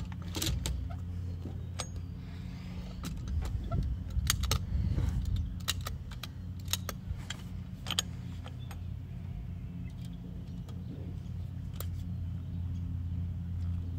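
Irregular small metallic clicks and clinks as a C-clamp valve spring compressor squeezes and releases a valve spring on a Ford 300 inline-six cylinder head while the spring retainer and valve keepers are set. A steady low rumble runs underneath.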